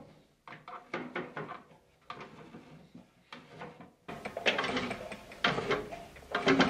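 Hammer N4400 bandsaw being handled: a string of short metallic rattles, clicks and scrapes with brief pauses between them, busier and louder in the second half.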